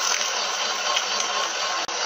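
Metal lathe running while abrasive paper is held against the face of a spinning Powerglide front pump gear, polishing its scored face flat: a steady hiss. The sound drops out for an instant near the end.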